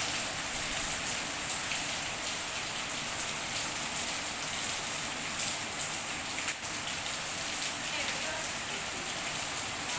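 Heavy rain falling steadily, a dense even hiss with many separate drops striking a surface.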